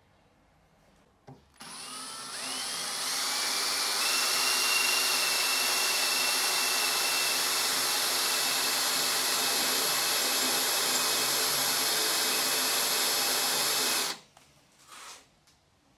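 Electric drill boring a hole lengthwise into a steel bolt clamped in a vise, with oil on the cut. The motor starts about a second and a half in with a rising whine that settles within a few seconds, runs steadily while cutting, and stops abruptly near the end.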